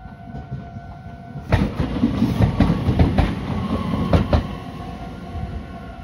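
Meitetsu electric train passing close at speed: from about a second and a half in, its wheels rumble and clatter over the rail joints in a string of sharp clacks, then ease off near the end. A steady two-tone level-crossing warning bell rings under it.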